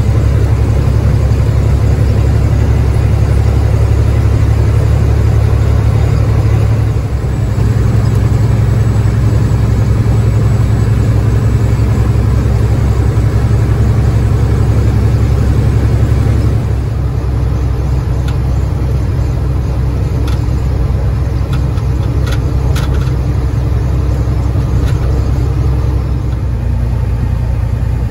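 In-cab sound of a Freightliner FLD120 semi truck cruising on the highway: the Caterpillar 3406E diesel's steady low drone with road noise. The sound drops slightly about sixteen seconds in, and a few faint ticks follow.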